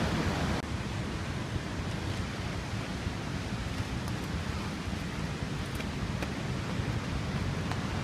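Steady rushing of a jungle waterfall, an even noise that drops slightly in level about half a second in.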